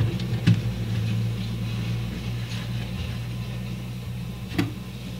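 A steady low hum with two sharp clicks, one about half a second in and one near the end, as a fan controller is slid into a computer case's 5.25-inch drive bay.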